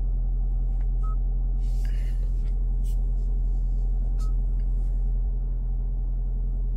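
Steady low hum inside a parked Hyundai Santa Fe's cabin, with two short touchscreen beeps, about a second in and about four seconds in, as the infotainment screen is tapped.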